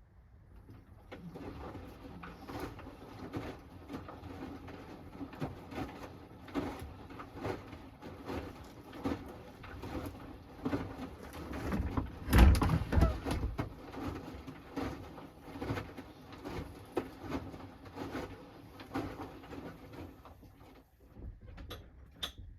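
Hoover Axi 10 kg washing machine turning its drum early in a Rapid 30' wash, with the load and water sloshing and irregular knocks. It starts about a second in, is loudest about halfway through, and stops about a second before the end.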